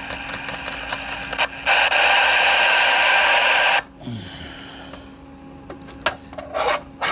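Receiver static hissing from the speaker of a Cobra 25 LTD Classic CB radio. The hiss jumps much louder about two seconds in, holds for about two seconds, then cuts off sharply. A quieter hiss and a few sharp clicks follow near the end.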